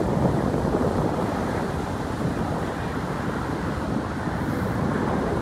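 Steady rumble of traffic on a suspension bridge, with wind buffeting the microphone.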